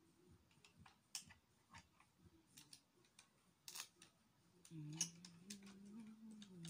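Plastic Lego bricks clicking and clattering in small, scattered clicks as they are handled, picked from the container and fitted together. About two-thirds of the way in, a person hums low under the clicks.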